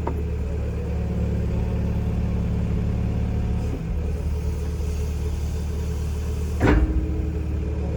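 Komatsu excavator's diesel engine running steadily, with a single clunk about three-quarters of the way through.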